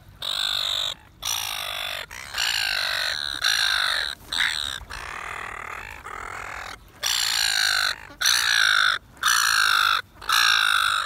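Silver gulls giving a long run of harsh squawking calls, about one a second, each call slightly falling in pitch.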